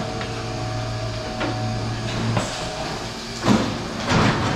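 DeLaval milking robot running as a cow stands in its stall: a steady mechanical hum with a few clicks, which stops about halfway through, followed by a sharp knock and a short rush of noise near the end.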